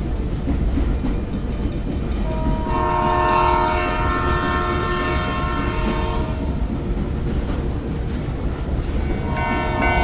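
Train running with a steady rumble, and a long train horn blast of several tones sounding together from about two seconds in, held for about four seconds; a second horn blast begins near the end.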